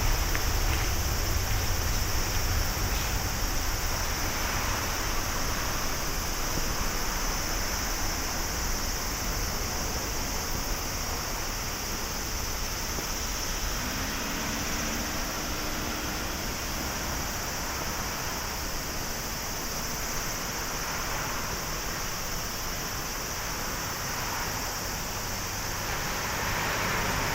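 Jet noise from an Airbus A350-900's Rolls-Royce Trent XWB engines climbing away after takeoff: a broad, steady rumble that slowly fades.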